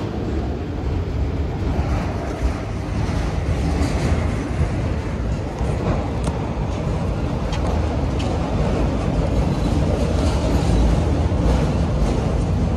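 Long freight train rolling past: a steady heavy rumble of cars on the rails, with occasional faint wheel clicks.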